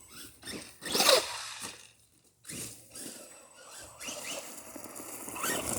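Arrma Big Rock RC truck's electric motor revving in short, rising bursts as the truck pushes through tall grass, with rustling and scrabbling between revs and a brief lull about two seconds in.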